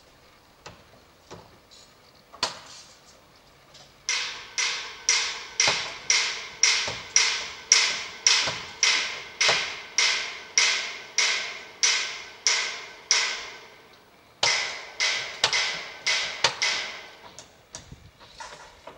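Hammer blows at about two a second, each a sharp strike that rings briefly at the same pitch. They come in a long steady run that pauses briefly and resumes for a few more blows. A few lighter, irregular taps come first.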